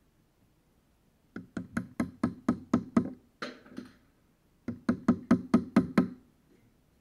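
Two runs of rapid knocks, about four a second, on a screwdriver set against a rivet of a Marshall amp cabinet's metal handle plate, driving the nail-like rivet out. A short scrape comes between the two runs.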